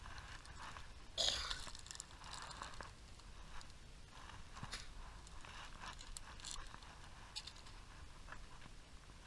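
Close rustling, crinkling and scattered light clicks of hands handling fishing tackle, with one louder rustle about a second in.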